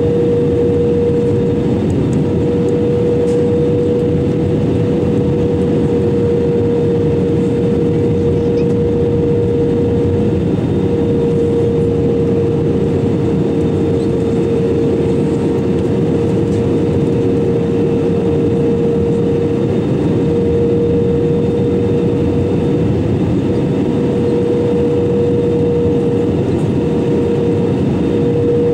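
Airbus A320-200 cabin noise heard from a window seat during the approach: a steady rush of airflow and engine noise with a constant hum running through it.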